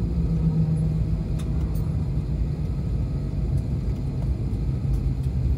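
Steady low hum and rumble inside the cabin of an Airbus A321neo standing at the gate, with its low tone dropping slightly near the end and a few faint clicks.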